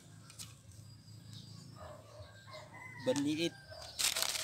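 A rooster crowing faintly in the distance, over quiet rural ambience. About four seconds in comes a short, louder rustle of handling.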